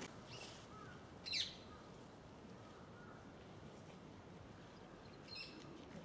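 Rose-ringed parakeet giving a short, high call about a second and a half in, and a fainter call near the end, over a faint steady background noise.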